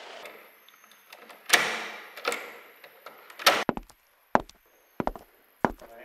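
A series of about six sharp knocks and clicks, unevenly spaced. The first, about one and a half seconds in, is the loudest and has a short rushing tail. A faint steady high whine runs underneath.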